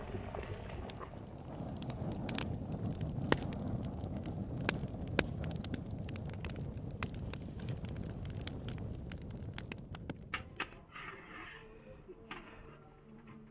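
Wood fire crackling under a large cooking pot: irregular sharp pops over a low rushing of the flames. The pops thin out and the sound grows quieter after about ten seconds.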